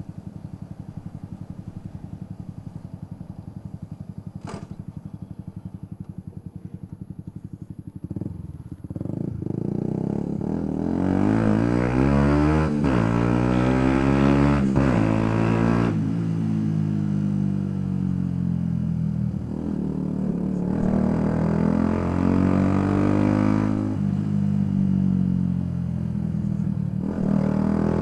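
Yamaha YZF-R125's single-cylinder four-stroke engine running low and even, then opening up about eight seconds in. The pitch climbs and drops back in several steps as the bike goes up through the gears, and it rises again later on.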